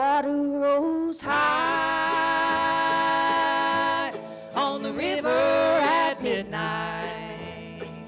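Acoustic string band playing live, with fiddle, mandolin and upright bass, and a long held note from about a second in.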